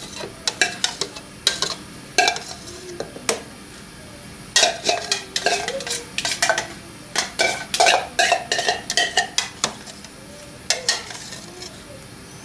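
Metal spoon clinking and scraping against a cup while stirring thick yogurt and sour cream, in quick irregular runs of clinks with a short pause in the middle, then a few knocks as the mixture is spooned out into a mixing bowl.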